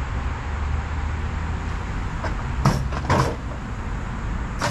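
Tow truck engine running with a steady low rumble, with two sharp knocks about two and a half and three seconds in and a short clatter at the very end.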